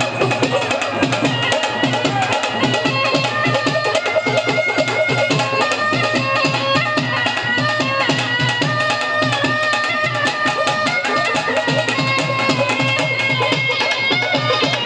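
Music with fast hand-drum percussion under held, stepping melodic lines, in the style of Indian traditional music.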